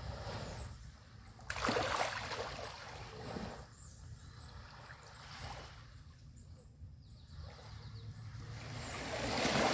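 Small sea waves breaking and washing up a beach: one surge about a second and a half in, another building near the end, over a steady low rumble of the water.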